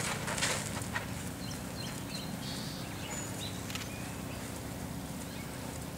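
Outdoor ambience: a steady low hum with scattered short, high chirps and a few soft knocks near the start.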